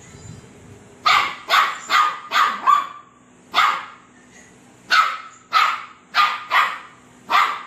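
A small fluffy puppy barking at a voice on a phone video call held just above it. It gives about eleven short, high barks: five in quick succession, one alone, then after a short pause five more.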